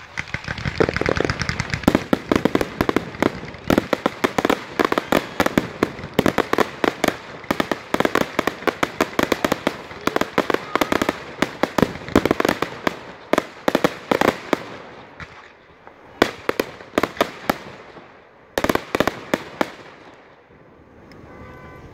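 Aerial fireworks going off in a rapid run of sharp cracks and bangs that lasts most of the first fifteen seconds, then two shorter flurries, dying away near the end.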